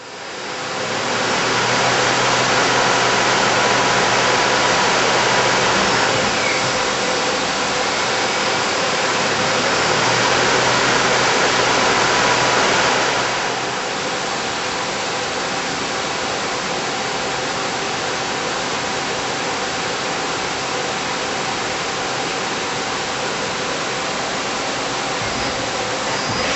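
Hurco TMM8 CNC turning center machining an aluminum part without coolant: a steady whir and hiss from the spindle and cutting. It drops somewhat in level about halfway through and then holds steady.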